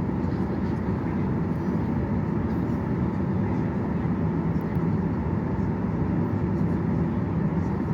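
Steady rumble inside the cabin of a Boeing 737-800 airliner, from its CFM56 turbofan engines and airflow.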